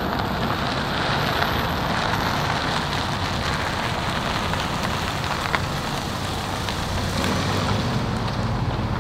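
A car driving slowly past close by: tyre noise on the rough road under a steady rushing hiss, with the low engine hum growing in the last couple of seconds as it comes alongside.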